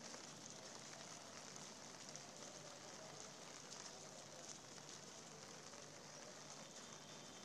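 Faint steady rain: an even hiss with a light patter of drops.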